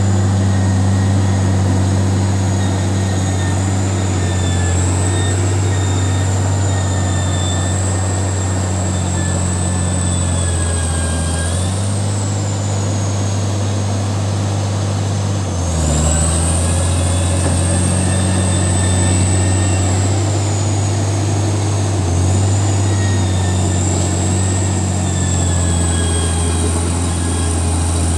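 Caterpillar D6D crawler bulldozer's diesel engine running steadily under load while it pushes soil, with a high whine that rises and falls. The engine note shifts about twelve seconds in and again about sixteen seconds in.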